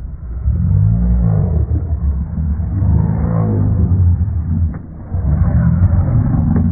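Kangal shepherd dog growling and barking deeply and aggressively in long bouts, with a short pause about five seconds in.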